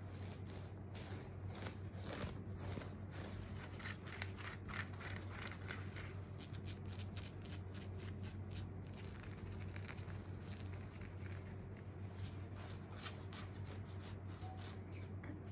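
Hands rubbing, patting and plucking at a cotton sweatshirt: irregular rustles and soft clicks of fabric handling, with close camera-handling knocks, over a steady low hum.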